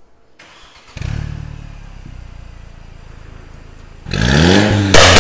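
Mercedes-Benz W204 C250's turbocharged four-cylinder engine starting about a second in through an aftermarket valved quad-tip exhaust, flaring then settling to a steady idle. About four seconds in, with the exhaust valves open, it is revved up, rising in pitch and much louder, with a second louder rev just at the end.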